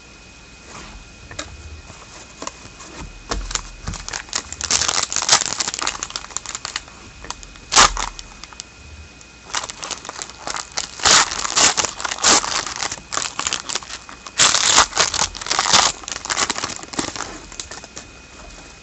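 Plastic wrapper of a 2013-14 Contenders hockey card pack crinkling and tearing as it is opened, in several bursts of crackle with a sharp snap about eight seconds in.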